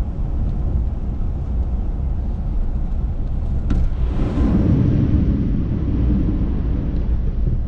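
Chevy Silverado pickup heard from inside the cab: a steady low engine and road rumble, then from about four seconds in a louder rush of floodwater splashing up against the truck as it drives through.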